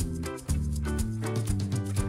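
Background music with a steady beat over the closing title card.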